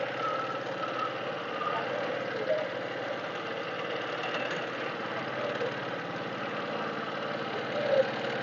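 Small boat engine running steadily, pushing the fishing canoe along.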